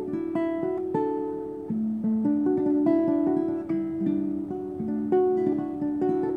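Classical guitar played fingerstyle: a melody of plucked notes, two or three a second, ringing over held lower notes.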